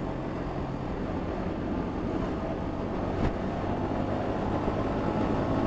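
Yamaha XSR155's single-cylinder engine running steadily while riding, with road noise, getting gradually louder. Heard through a helmet-mounted action-camera mic.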